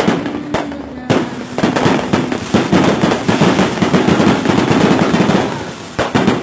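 Aerial fireworks display going off: dense, continuous crackling and popping with sharp bangs, a strong one about a second in and another near the end.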